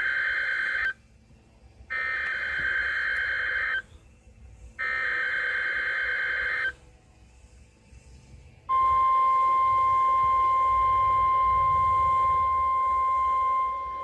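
NOAA Weather Radio sending a SAME alert through a receiver's speaker: three buzzy bursts of warbling data tones, each about two seconds long with short silences between, then a single steady high alert tone. The alert tone starts about nine seconds in and holds for about five seconds.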